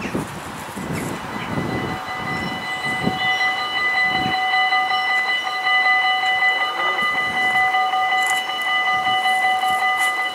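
An approaching train heard from a distance as a steady high-pitched whine of several tones, the rails singing ahead of it. There are low rumbles in the first few seconds.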